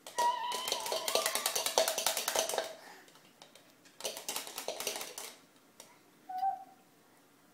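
A metal fork rattled rapidly against a plastic cup: a fast run of clicks lasting about two and a half seconds, then a shorter run a second later. A child's voice sounds over the first run, and a short vocal sound comes near the end.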